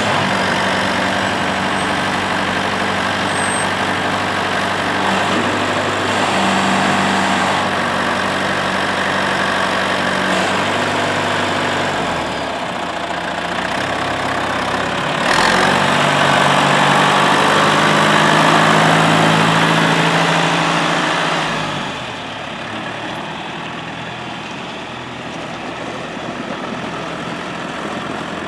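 John Deere loader tractor's diesel engine running steadily at idle, picking up in speed and loudness a couple of times, then dropping away about three-quarters of the way through as the tractor drives off.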